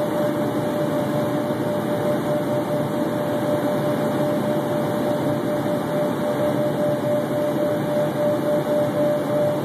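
Steady in-cabin noise of an Embraer Phenom 100 light jet in flight: the rush of airflow and its rear-mounted turbofan engines, with a steady whine over it.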